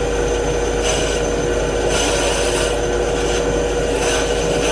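Small benchtop band saw running with a steady hum and a faint high whine, its blade cutting around a tight corner in a piece of wood.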